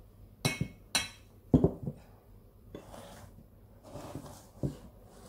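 Bowls being picked up, moved and set down on a tabletop: three sharp clunks in the first two seconds, then fainter knocks and handling noises.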